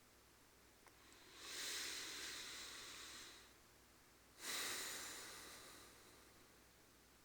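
Two long, soft breaths close to the microphone: one rising gradually about a second in, the second starting abruptly about four seconds in and trailing away.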